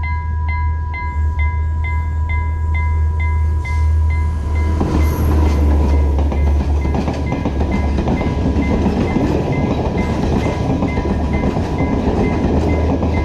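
Sri Lankan railway level crossing bell ringing steadily at about two strikes a second. From about five seconds in a train passes over the crossing, its rumble and wheel noise rising over the bell.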